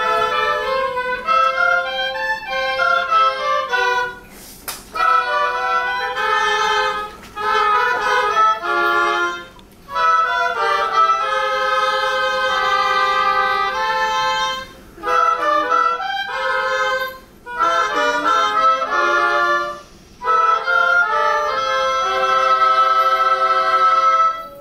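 Oboe ensemble playing a tune in several parts at once, the phrases broken by short pauses for breath; the closing chord of the piece stops near the end.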